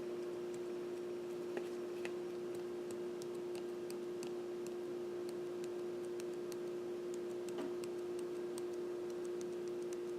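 Paprika being shaken from a shaker over deviled eggs: faint, irregular light ticks over a steady low hum.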